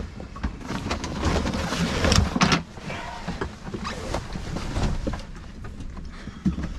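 Stored gear being shifted and dragged around inside a sailboat's lazarette locker: irregular rustling and scraping with a few knocks, the loudest about two seconds in.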